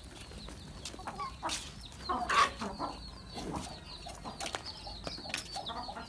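Aseel chickens clucking in short, scattered calls, the loudest about two and a half seconds in, over a constant thin peeping of chicks. A few sharp clicks come between the calls.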